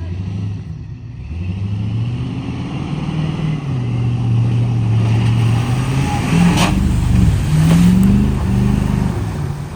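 Car or truck engine revving under load, its pitch climbing and falling repeatedly, with a rushing noise swelling about two-thirds of the way through.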